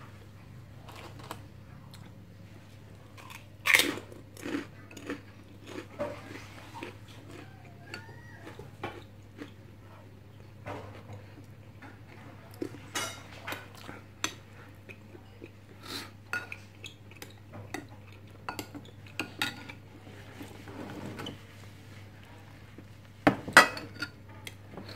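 A metal spoon clinking and scraping against a glass bowl of cilok in spicy broth, with chewing in between. The sharpest clinks come about four seconds in and again near the end.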